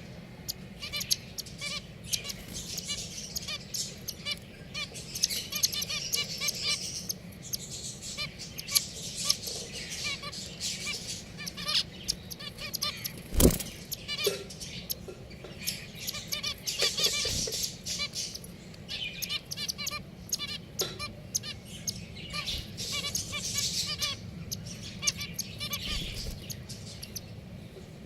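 Pet finches chirping continually in many short, high calls, with one sharp knock about halfway through.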